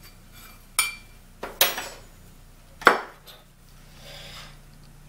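Small stainless steel prep bowls and a metal measuring spoon clinking as they are set down on a countertop: three sharp clinks about a second apart, the last the loudest, with a couple of fainter taps.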